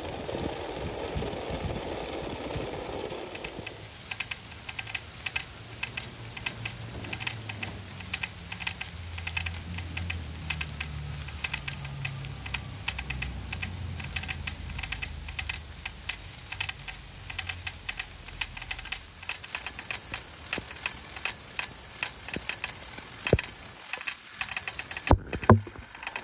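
Brass ball-drive sprinkler running: water spraying, with a fast, irregular ticking rattle from the ball drive as it turns the nozzle.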